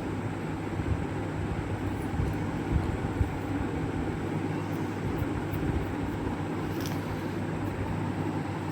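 A steady low mechanical hum, with a faint click or two about seven seconds in.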